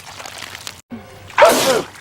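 A man's loud sneeze about a second and a half in. It is one pass of the same sneeze looped over and over, coming round every two and a half seconds or so.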